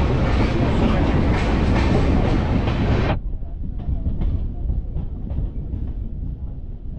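Passenger train coaches rolling along a station platform, heard from the open door: a loud rush of wheels and air with clicks over the rail joints. About three seconds in it drops suddenly to a quieter low rumble with occasional clicks as the train runs in slowly.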